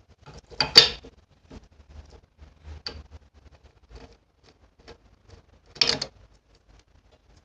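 Clattering and clicking of small hard objects being handled, with two louder clatters about a second in and about six seconds in, and lighter knocks and ticks between them.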